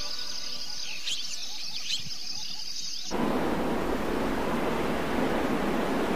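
Faint high chirping, then about three seconds in a steady rushing noise with a low rumble cuts in suddenly, an ambient noise effect at the start of a music track.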